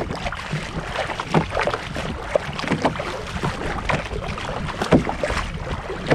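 Double-bladed kayak paddle stroking hard through choppy seawater, each blade dip and pull splashing irregularly, with water washing along the kayak hull.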